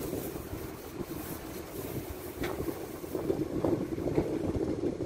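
Sumitomo SH210 excavator's diesel engine running steadily while it works, with wind buffeting the microphone and a few short knocks around the middle.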